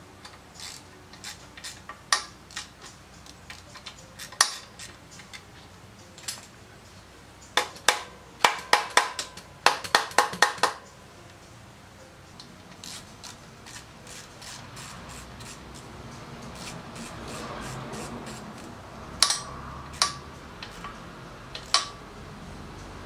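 Metal hand-tool clicks and clinks as a socket wrench works the bolts of a motorcycle transmission mounting plate, with a quick run of clicks about halfway through and a few single clinks near the end.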